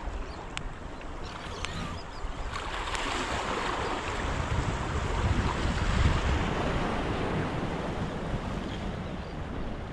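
Small sea waves washing and splashing against shoreline rocks, one surge swelling about three seconds in and easing off, with wind rumbling on the microphone.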